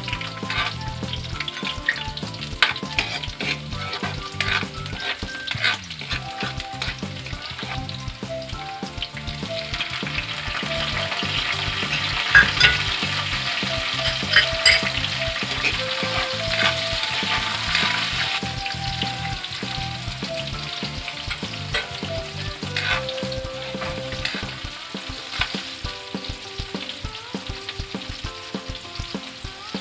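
Chopped garlic, onion and tomato sizzling in hot oil in a wok, with frequent sharp clicks and scrapes of a utensil stirring against the pan. The sizzle grows louder about ten seconds in.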